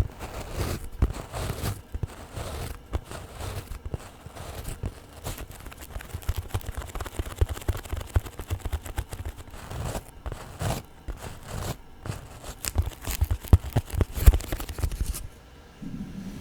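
Long fingernails scratching and rubbing fast and irregularly right on a microphone, close and loud with handling rumble. About a second before the end the scratching stops and a low steady hum takes over.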